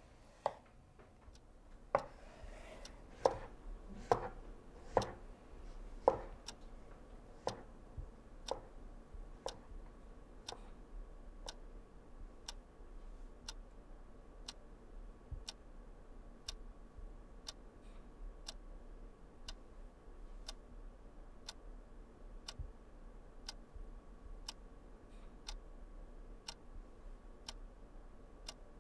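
A few knife strokes on a wooden cutting board in the first six seconds, then a clock ticking steadily, about one tick a second.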